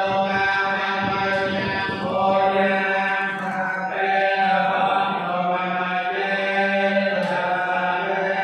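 Buddhist monks chanting together in low male voices, holding a steady, drone-like pitch with slight rises and falls in the melody. This is a funeral chant.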